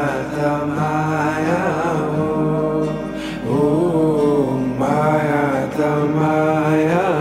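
Background music: a song with a sung vocal melody held over a steady accompaniment, its phrases swelling about every second or two.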